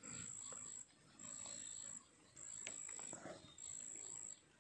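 An insect trilling in a steady high pitch, in pulses of just under a second with short breaks between, four times over.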